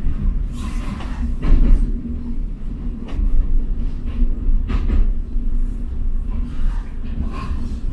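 Passenger train running on the rails: a steady low rumble with occasional irregular knocks and rattles from the wheels and carriage.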